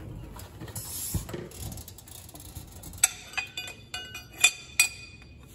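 Handling rustle with a dull thump about a second in, then six sharp metallic clinks with a short ring over about two seconds, as the steel lift link of an Allis-Chalmers three-point hitch is handled against the lift arm.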